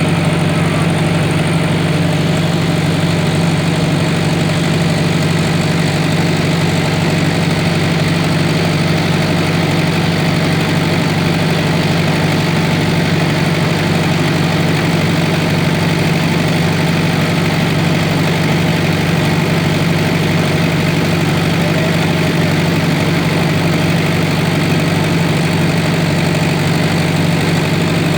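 An engine running steadily at an even speed, with a strong low hum that does not change.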